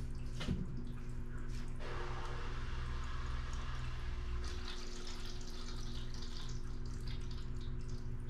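Aquarium filter running: a steady trickle of water with a constant low hum, while fabric rustles as a shirt is handled.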